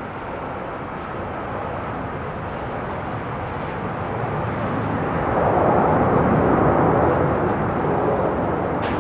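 Airbus A319's IAE V2500 jet engines running as the airliner rolls out on the runway after landing: a steady rushing jet noise that grows louder about five seconds in, then eases slightly. A short knock near the end.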